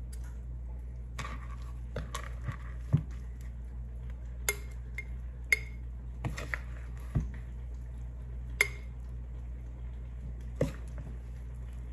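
Metal spoon clinking against a glass mason jar as shredded cabbage is spooned in: sharp, irregular clinks about a second apart, over a steady low hum.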